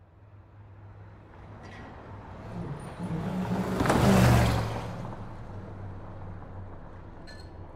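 A car driving past close by, its engine hum and tyre noise swelling to a peak about four seconds in, then easing as it pulls ahead, over a steady background of traffic.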